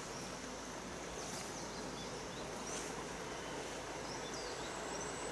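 Steady rushing of a small forest stream, with a few short high chirps over it. A thin, high, steady tone comes in near the end.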